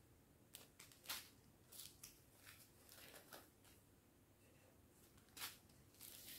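Faint, irregular crinkling and rustling of small plastic zip-lock bags of diamond painting drills being picked up and handled, louder about a second in and again near the end.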